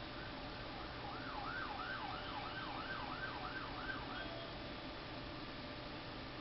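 An emergency vehicle siren sweeping quickly up and down in pitch, about two and a half times a second, over a steady hiss. It comes in about a second in and fades out about three seconds later.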